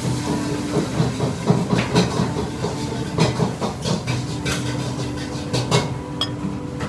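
Eating in a ramen restaurant: a ceramic soup spoon clicking against dishes, with chewing, in short irregular clicks and knocks that are busiest in the first few seconds. A steady hum of the restaurant runs beneath.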